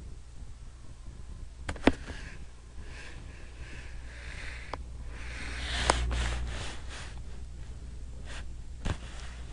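Small dog chewing and tearing paper: crinkly rustling with scattered sharp clicks, the loudest click about two seconds in and the rustling heaviest around six seconds in.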